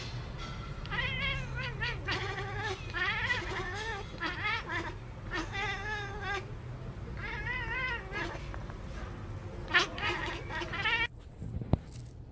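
Domestic cat calling in a long run of short, warbling meows with a quivering pitch. The calls stop abruptly near the end.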